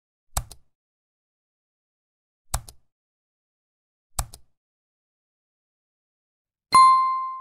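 Three mouse-click sound effects, each a quick double click, about two seconds apart, then a notification-bell chime near the end that rings out and fades: the sound effects of a like, subscribe and bell-button animation.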